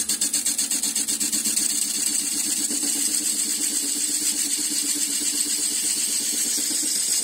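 A Wiedemann cup (ring) tool cutting end grain on a spinning wood-lathe bowl blank, giving a steady hiss of cutting over the lathe's hum. The cut pulses quickly at first, about seven beats a second, then evens out about a second and a half in.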